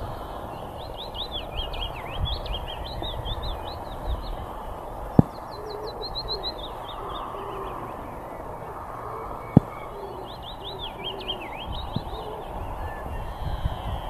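A leaf warbler singing: three short phrases of quick, high, bouncing notes, each one to three seconds long, over a steady background hiss. Two sharp clicks, the loudest sounds, come about five seconds in and again near ten seconds.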